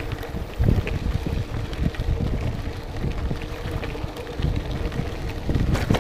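Wind buffeting the action camera's microphone over the rumble of a gravel bike rolling on rough ground, with scattered small clicks and rattles.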